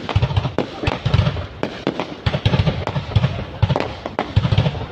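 Fireworks display going off in rapid, irregular succession: sharp cracks mixed with deep booms, several every second.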